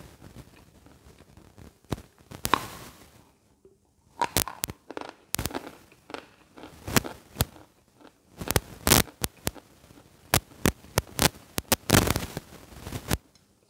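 Crisp crunching of dry mountain chalk being bitten and chewed, heard close on a lapel microphone: irregular clusters of sharp cracks and crumbling.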